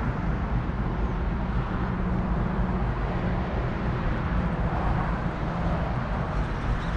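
Steady low rumble with a faint engine hum, from a distant motor running.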